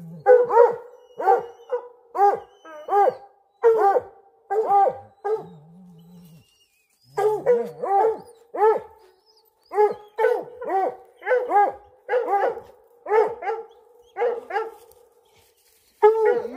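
Hunting hounds barking steadily at a bobcat they have treed, about two barks a second, with a short pause near the middle.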